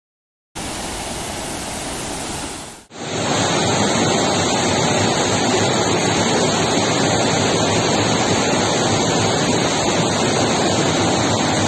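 Steady rushing of water from heavy rain and floodwater. A first stretch fades out about two and a half seconds in, and a louder, even rush of the same kind takes over.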